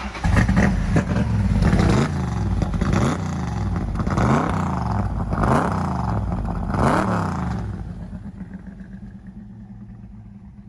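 A 535-horsepower V8 crate motor in a 1967 Mustang GT500e fires up and runs loud. It is blipped about four times, each rev rising and falling, then settles to a quieter, steady idle near the end.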